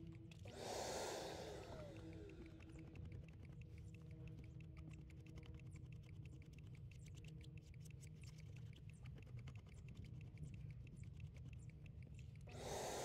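Faint rapid clicking over a low hum, with a short hiss about half a second in. Near the end a carpet extractor's vacuum motor switches on and runs with a steady rushing noise.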